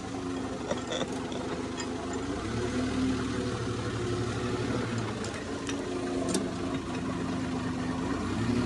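Tractor engine running steadily, its pitch shifting slightly. A deeper low rumble joins it for a few seconds in the middle.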